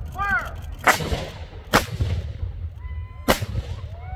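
Three black-powder gunshots (reenactment blanks), each a sharp crack with a short echoing tail, the first two close together and the third about a second and a half later, with voices yelling around them.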